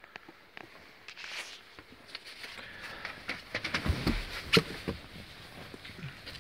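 Clicks, rustling and knocks from someone moving about inside a car's cabin with a handheld camera. A heavy thump comes about four seconds in, with a sharp knock just after it.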